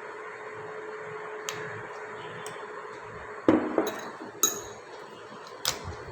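A metal spoon clinking against a drinking glass about four times in the second half, the first knock the loudest, over a steady background hum.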